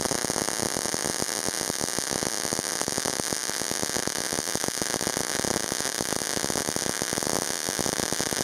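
MIG/MAG welding arc in short-circuit transfer, a steady, dense, irregular crackle. It is a first test bead on 2 mm plate with 0.8 mm wire at 18 V and 4.5 m/min wire feed. These settings lay a narrow, fairly thick bead, a sign that the voltage is too low.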